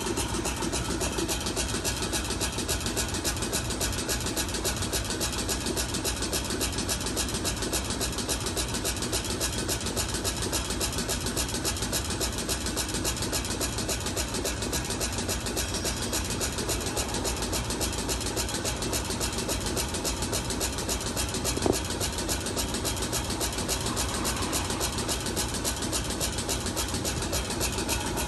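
Cold extrusion pet-treat machine and its conveyor running steadily: a continuous mechanical drone with a fast, even pulse, and a single sharp knock about three-quarters of the way through.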